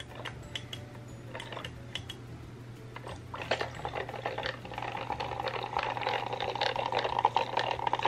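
Toy beauty blender washing machine's small electric motor running, a rapid rattling whir that starts about three seconds in and grows louder. The drum is barely turning, struggling with a water-swollen makeup sponge inside.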